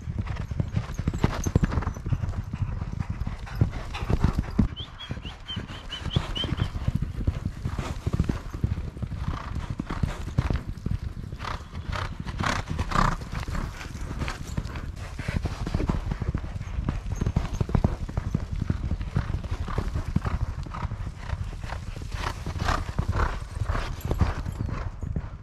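Hoofbeats of a group of racehorses at exercise, many hooves overlapping in a continuous, uneven run of knocks.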